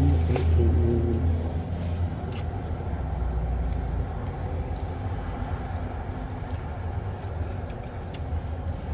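Steady low rumble of an idling car engine, a little stronger in the first couple of seconds, with a few faint clicks.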